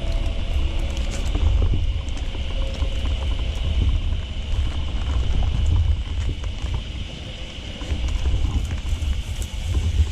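Low, uneven buffeting of wind and movement on the microphone, over a faint steady high drone, with scattered small clicks.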